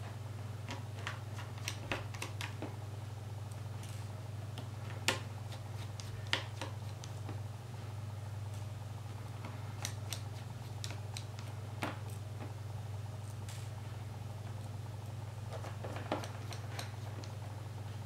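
Small precision screwdriver clicking and scraping on the tiny screws and plastic frame of a Samsung Galaxy S2 as the screws are backed out: scattered light clicks, a few sharper ones about five, six and twelve seconds in, over a steady low hum.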